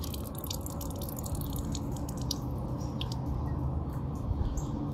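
Rainwater dripping, with scattered small drops tapping irregularly over a steady low background.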